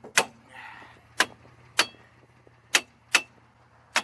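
Sharp metal-on-metal knocks at the brake drum, about six at uneven spacing, each with a short ring.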